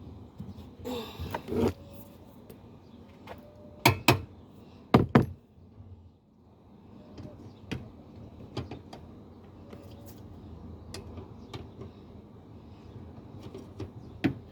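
Hand work on a van's lift gate strut mount: a scuffle about a second in, two loud sharp double knocks around four and five seconds in, then scattered light clicks and ticks.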